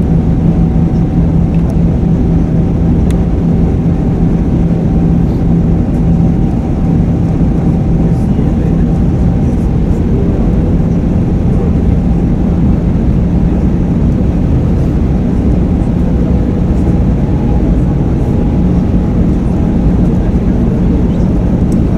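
Steady drone of airflow and the twin jet engines inside an Airbus A320 cabin during the descent, with a steady low hum and a fainter higher tone running through it.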